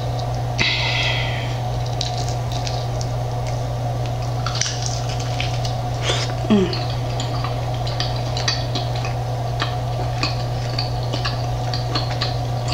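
Close-miked eating of crunchy barbecue chicken wings: chewing with wet mouth sounds and many short crunchy clicks, over a steady low hum.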